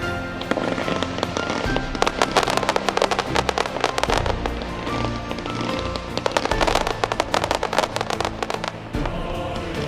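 Fireworks going off in dense, rapid crackling pops, thickest in two spells, with music playing throughout.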